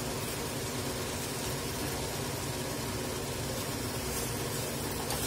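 Steady mechanical hum and hiss throughout. Water is poured into the pan of thoran at the start, and a steel spoon stirs through it near the end with a few faint scrapes.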